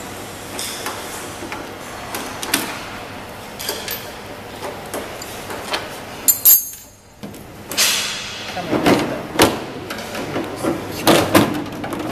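Scattered clicks and knocks of screwdrivers and metal panels being handled while the side guards of a metal-detector conveyor are fastened. There is one sharp, louder hit about halfway through, and the knocks come thicker and louder near the end.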